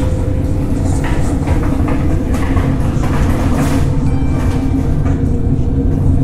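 Wheeled flat cart rolling over a hard floor: a loud, steady rumble with irregular clicks and rattles.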